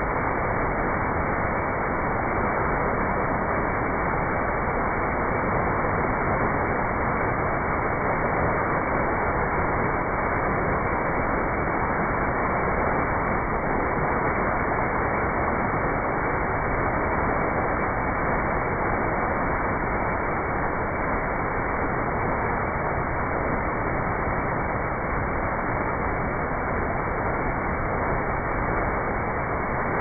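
Waterfall pouring and splashing steadily onto a person standing under it, an even rush of falling water.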